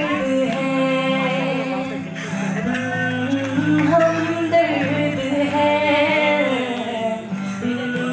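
A woman singing a slow melody into a microphone, with held notes that waver, accompanied by a strummed acoustic guitar.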